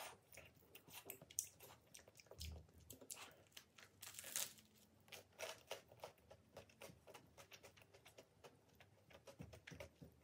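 A person chewing garlic bread and lasagne close to the microphone: a string of small crunches and clicks.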